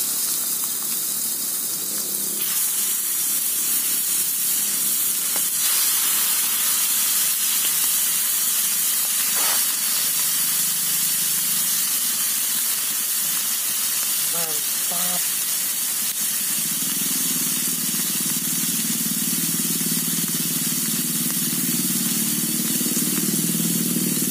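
Pieces of spotted dove meat sizzling and frying in melted butter in a small camping pot, over the steady hiss of a portable gas stove's burner.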